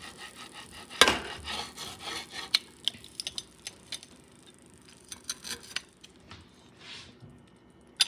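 Metal pizza cutter wheel rolling through a crisp naan-bread pizza and scraping against a glass baking dish, with scattered sharp clicks and a loud knock about a second in.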